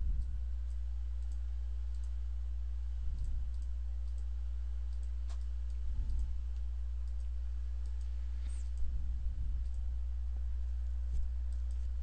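Scattered computer mouse clicks over a steady low electrical hum, with a few soft low thuds about every three seconds.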